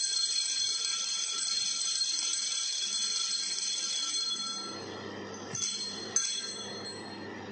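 Altar bells ringing continuously for the elevation of the chalice at the consecration. The ringing dies away about four and a half seconds in, then two sharp bell strikes come about half a second apart.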